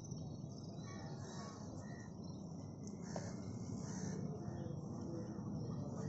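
Outdoor ambience: insects chirring steadily in the high range, with short, scattered bird calls over a low, steady background rumble.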